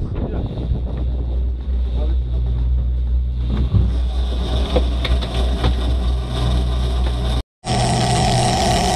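Outboard engine of a motorboat running steadily under wind noise. The sound cuts out for a moment near the end, then comes back with a changed tone.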